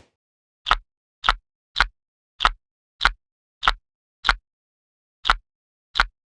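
A squishy NeeDoh fidget toy squeezed over and over, giving a short, sharp sound with each squeeze. There are nine in a regular rhythm of about one every half second, with a slightly longer gap before the last two.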